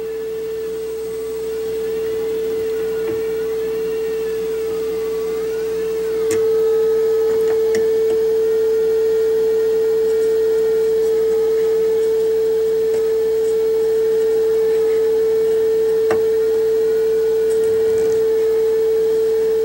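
Steady single-pitch test tone from the Magnavox console stereo's AM tuner, which is receiving a signal generator's modulated signal during alignment, as the transformers are adjusted to bring the signal up. The tone gets louder about six seconds in, and a faint wavering whistle sits above it in the first few seconds.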